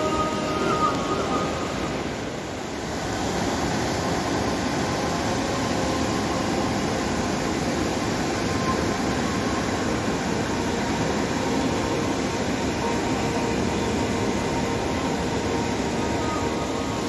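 Swollen Swat River in flood: fast, muddy floodwater rushing past in a steady roar.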